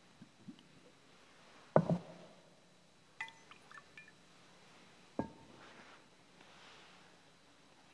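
Metal altar vessels being handled, as in the purification of the chalice after communion: a knock about two seconds in, a few light ringing clinks, then another knock about five seconds in.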